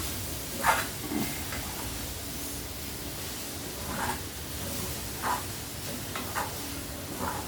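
Grated coconut, dry ginger powder and palm sugar candy frying in sesame oil in a pan, with a steady low sizzle. A spatula scrapes and stirs it several times at irregular intervals.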